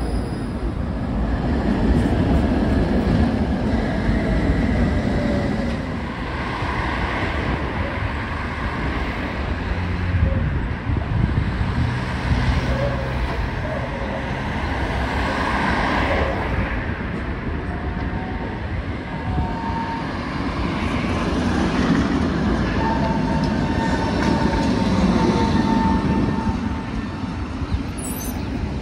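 Tatra tram running along the track: steady rumble of steel wheels on rails, with a few thin wheel squeals in the second half.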